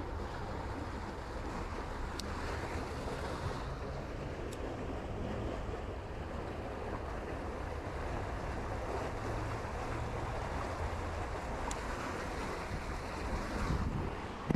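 Fast-flowing creek water rushing steadily, with wind on the microphone and a few faint ticks.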